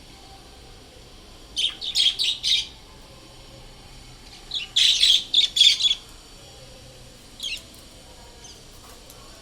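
Birds calling: two bursts of quick, high-pitched calls, four or five notes each, about two seconds in and again about five seconds in, then a single call near the end.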